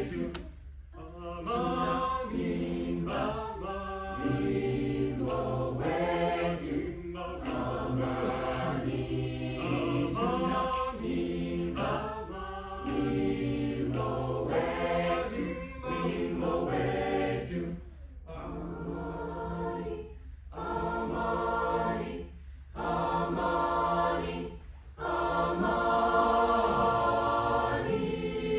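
Chamber choir singing in several-part harmony, in phrases broken by short breaths. It holds a long, full chord in the last few seconds.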